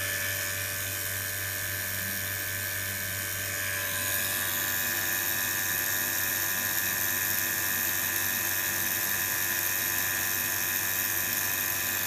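Steady high-pitched machine whine over a hum, from an electric vacuum pump evacuating a chamber that holds a running Bedini pulse motor. About four seconds in, the upper tones step up and get louder.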